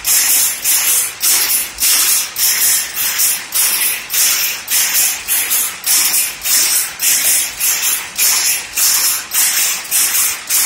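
Pick-and-pick power loom with 4 x 4 shuttle boxes running: a loud, steady mechanical clatter at a little over two beats a second, one beat per pick.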